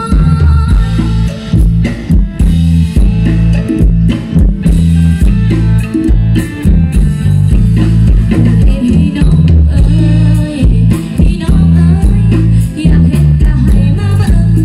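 Live Isan pong lang band music with a strong bass line, drum kit and plucked strings keeping a steady dance beat.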